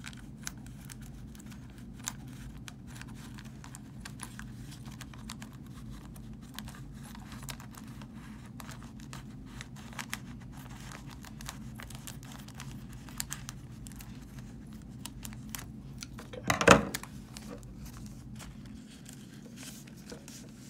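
Scissors snipping through a black plastic mystery bag, with the plastic crinkling and rustling as it is handled in a string of small irregular crackles. One much louder crackle comes late on.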